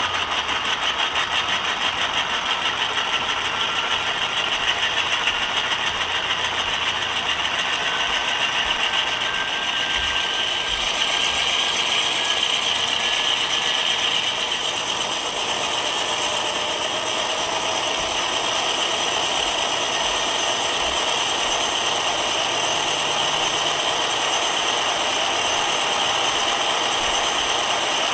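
ESU LokSound decoder's GE diesel prime mover sound played through a Bowser dual cube speaker in an HO scale BC Rail Dash 9 model, running steadily with a fast, even chug and faint whine. The small speaker gives it strong treble and little bass.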